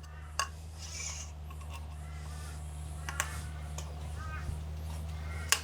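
A few sharp metallic clicks of cut aluminium tubing being handled, over a steady low hum, with faint bird calls in the background.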